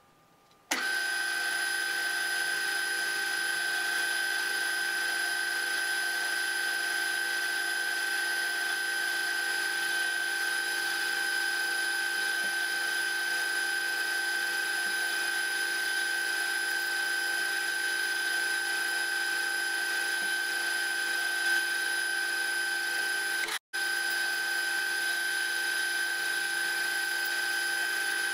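CQ9332A bench lathe running at a steady speed, its motor and gear train giving a constant high whine. It cuts in abruptly just under a second in and drops out for an instant about three-quarters of the way through.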